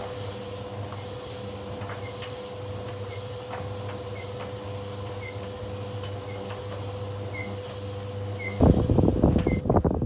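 Bosch Classixx Maxx vented tumble dryer running: a steady motor hum with a faint tick about once a second as the drum turns. Near the end, a loud gusty rush of air buffets the microphone, from the dryer's exhaust outlet.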